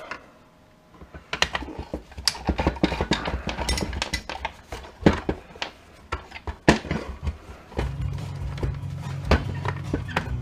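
Irregular clicks, taps and knocks of plastic and metal parts of a cordless circular saw being handled and pried at during disassembly. A steady low hum comes in about eight seconds in.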